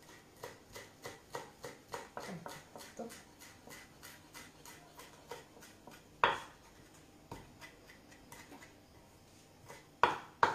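A utensil stirring an olive-oil and lemon marinade in a cup, clinking against the sides about three times a second as the oil and juice are mixed together. One sharper knock comes about six seconds in, and a few louder knocks come near the end.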